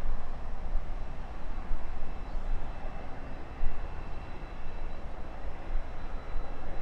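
Jet airliner engine noise from a landing approach, a broad steady rumble, with gusty wind buffeting the microphone.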